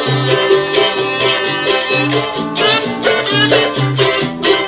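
Instrumental music with plucked strings over a steady bass line.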